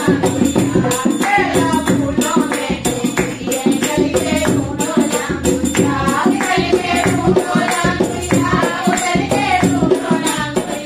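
A languriya folk devotional song: a woman singing to a dholak drum and jingling, rattling hand percussion keeping a steady beat.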